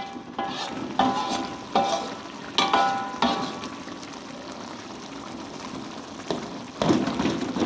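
Fish and spice paste sizzling in a pan while a metal spatula stirs it, clanking against the pan with a ringing note four times in the first three and a half seconds. Then a steady sizzle, with louder stirring and scraping near the end.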